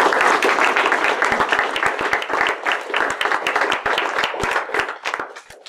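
Audience applauding at the end of a talk, a dense patter of many hands clapping that thins out and fades near the end.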